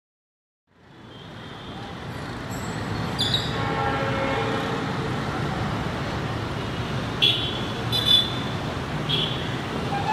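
Steady urban road-traffic hum fading in about a second in, with several short, sharp high-pitched sounds standing out above it, the loudest near the end.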